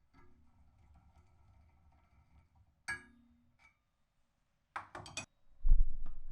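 Small metal parts and tools handled on a workbench: a single ringing metal clink, then a quick cluster of sharp clicks and a heavy low thump near the end.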